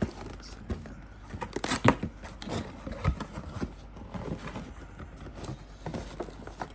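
Cardboard packaging being handled and opened: scattered scrapes, taps and small knocks, the loudest just under two seconds in.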